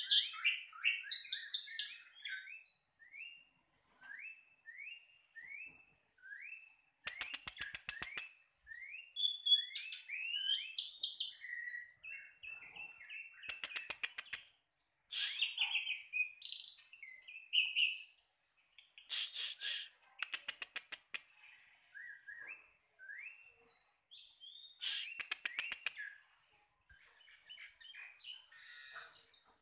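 Birds singing: a run of short, quick down-slurred chirps, broken about every six seconds by a fast dry rattle lasting a second or so.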